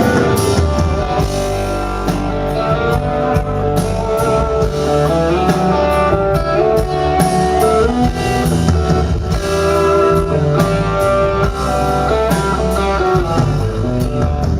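Live country band playing an instrumental break: guitar lead over bass and drums, with no singing.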